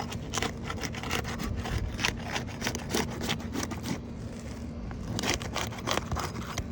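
A roofing tool scraping and rasping as it is worked under asphalt shingles, breaking the tabs' adhesive seal in a run of short, irregular strokes.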